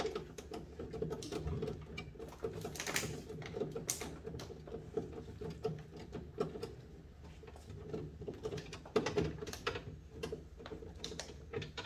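Irregular clicks, knocks and scraping from hand tools working a long screw out of an ice maker's housing.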